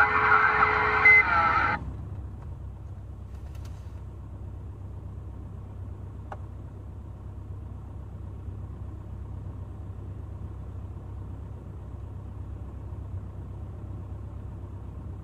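CB radio receiver audio, a garbled sideband signal with whistling tones, cuts off suddenly about two seconds in, leaving a steady low vehicle rumble.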